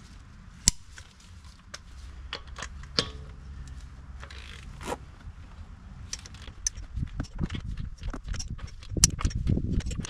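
Torque wrench ratcheting and clicking on the front wheel's lug nuts as they are torqued to 115 foot-pounds: a few scattered clicks at first, then a dense run of rapid metallic clicks over the last few seconds.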